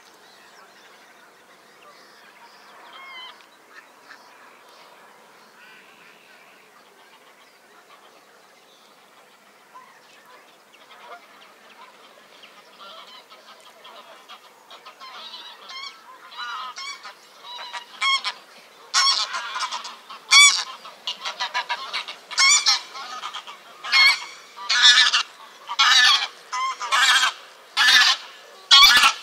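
Geese honking, faint and scattered at first, then building about halfway through into loud honks repeated roughly once a second.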